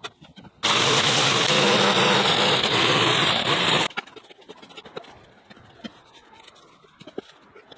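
A loud, steady engine noise starts abruptly about half a second in and cuts off just as suddenly about three seconds later. Then a garden rake scrapes and scratches over dirt and cut weeds, with scattered light clicks.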